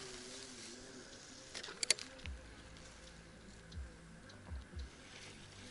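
Handling noise from fishing gear and the camera: a sharp double click about two seconds in, then a few soft low thumps, over a quiet background with faint distant music.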